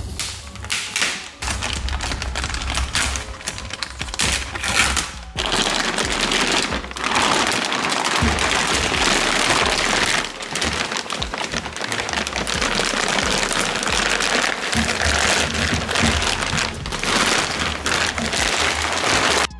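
Loose clear plastic bag being pulled off a machine and bunched up, with dense crinkling and crackling that comes in long loud stretches, over background music.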